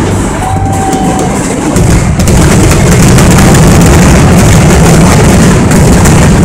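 A fireworks barrage going off nonstop, the booms and crackles merging into a loud continuous rumble that grows louder a little under two seconds in. A short whistle sounds about half a second in.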